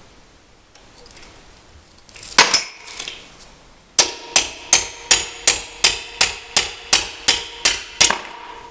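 A steel hammer striking a drift pin punch to drive a roll pin out of a Troy-Bilt tiller transmission. There are two strikes, then a steady run of about a dozen sharp, ringing metal-on-metal blows, about three a second.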